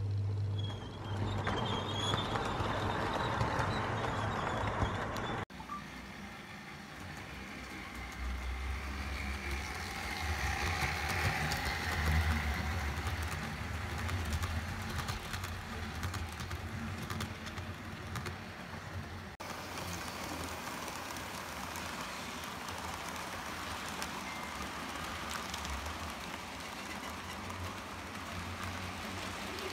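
Model trains running round a model railway layout, with a low motor hum and the rumble of wheels on the track. The sound changes abruptly twice, about five seconds in and about two-thirds of the way through, where clips are joined.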